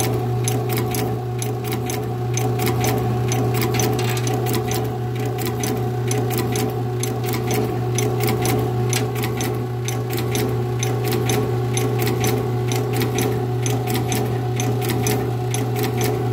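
Small automated stone-handling machine running: its mechanism clicks rapidly and evenly over a steady low hum.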